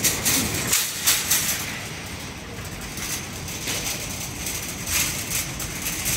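Warehouse-store background noise: a steady rumble with short rattling clatters in the first second and a half and again around four to five seconds in.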